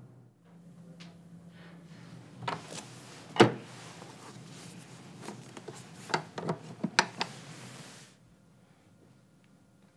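Room tone in a small room: a low steady hum with scattered sharp clicks and knocks, the loudest about three and a half seconds in, a quick cluster of them near the end. The hum and knocks cut off abruptly at about eight seconds.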